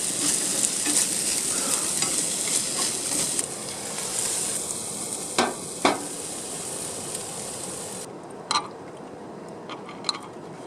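Food sizzling in a hot pan, a steady hiss with a few sharp clicks of a utensil against the pan; the sizzle falls away about eight seconds in.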